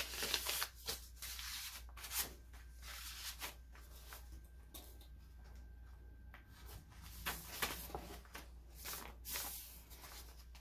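Paper rustling and brushing as hands turn the pages of a handmade journal and handle its paper tags, in short soft strokes, with a quieter stretch in the middle.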